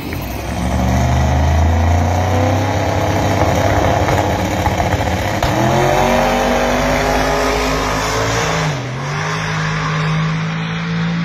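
Twin-turbocharged Pro Line 481X V8 of a 1970 Ford Falcon XW drag car running loud, its pitch rising in several glides as it accelerates. After a brief dip near the end it settles into a steady drone.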